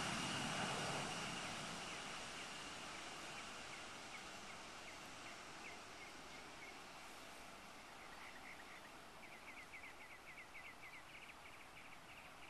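Embraer ERJ-145's twin Rolls-Royce AE 3007 turbofans fading as the jet moves away down the runway, with a steady high whine early on. From about three seconds in, quick bird chirps come through and grow busier near the end.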